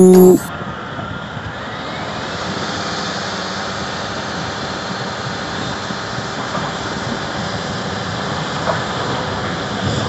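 Heavy diesel earthmoving machinery running steadily: a Volvo articulated dump truck raising its bed to tip its load, with a crawler bulldozer working alongside. A snatch of music and voice ends about half a second in.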